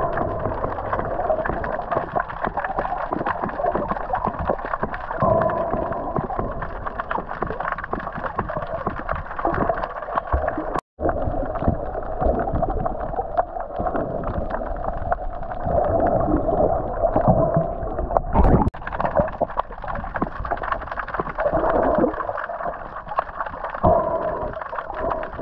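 Muffled underwater rushing and gurgling picked up by a camera held under the water while snorkelling, with a brief cut-out about eleven seconds in.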